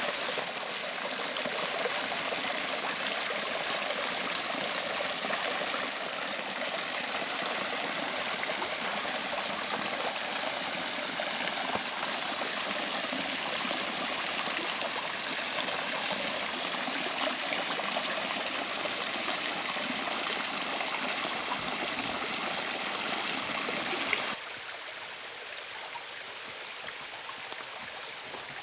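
A stream running, a steady rushing of water that drops to a quieter level about 24 seconds in.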